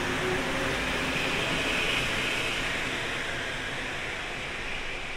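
Mexico City Metro MP-68 rubber-tyred train running along the platform, a steady rushing rumble and hiss that grows slowly quieter over the second half.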